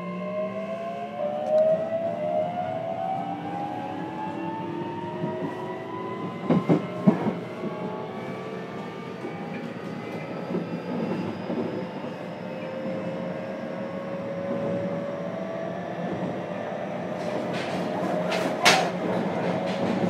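Interior running sound of a JR Kyushu 303 series electric motor car: the VVVF inverter and traction motors whine in several tones that climb steadily in pitch as the train accelerates, over rumbling wheel noise. Wheels clack over rail joints about a third of the way in and again near the end.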